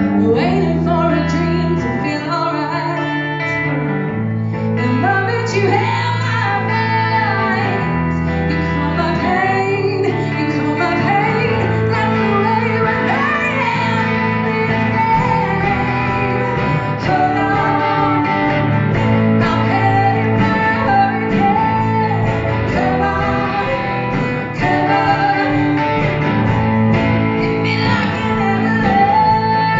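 A band playing a song, with a woman singing the lead over guitars and a steady bass line.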